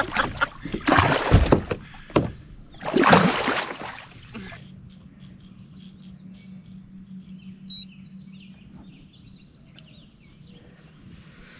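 Water splashing and sloshing as a big catfish is lifted from the water beside a kayak, with a heavy knock about a second in. After about four and a half seconds it settles to a steady low hum with faint high chirps.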